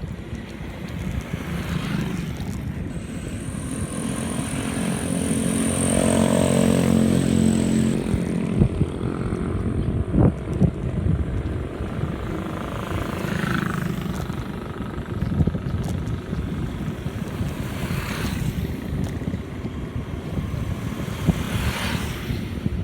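Steady wind and road rumble, with a motor vehicle's engine passing close, building up and then fading away from about three to eight seconds in. A few short knocks come around ten seconds in.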